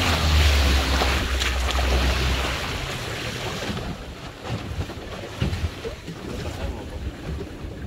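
A boat's engine runs with wind and water rushing past, then drops in pitch and dies away over the first two and a half seconds as the boat slows. Quieter lapping water and a few light knocks follow.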